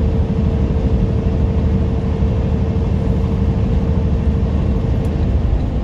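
Semi-truck cab at highway speed: the diesel engine and road noise make a steady low drone, with a thin mid-pitched hum on top that stops about five seconds in.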